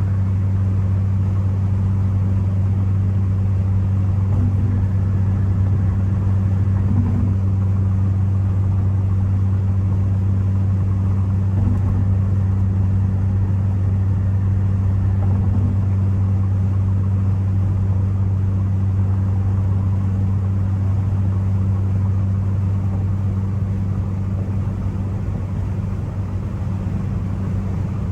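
Turbocharged Ford Focus ST cruising at a steady speed: a constant low engine drone that holds one pitch, over road noise. It eases off slightly near the end.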